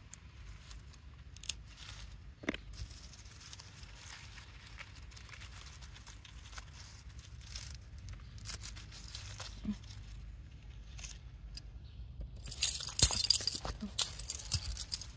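Strawberry leaves and stems rustling and crackling as a hand parts the plants and picks berries, with scattered soft snaps, and a louder burst of dense rustling near the end.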